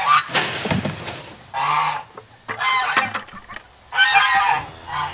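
Domestic fowl calling loudly and repeatedly in short, honking calls. About half a second in comes a brief rush of dry chicken feed poured from a plastic bucket into a plastic garbage-can feeder.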